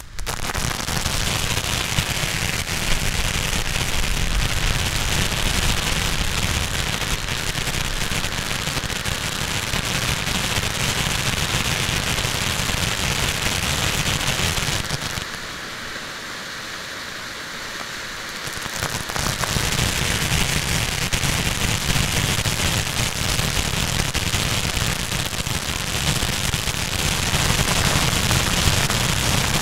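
Ground fountain fireworks spraying sparks: a continuous dense hiss of burning composition. It drops quieter for a few seconds past the middle, then returns to full strength.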